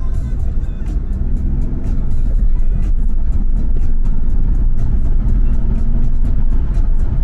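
Car driving, heard from inside the cabin: a steady low rumble of engine and tyres on the road. Music is playing in the car over it, with a light, regular ticking beat.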